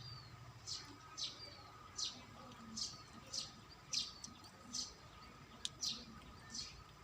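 A bird chirping over and over, one short falling chirp roughly every two-thirds of a second.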